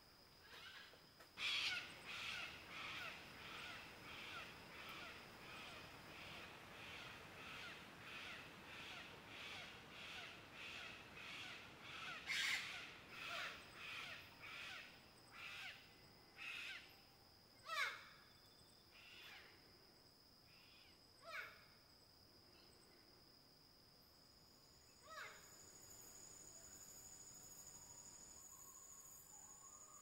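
A parrot giving a long run of harsh squawks, about one and a half a second, starting a second or two in. The calls then thin out to a few single squawks and stop after about 25 seconds. A steady high insect buzz runs underneath.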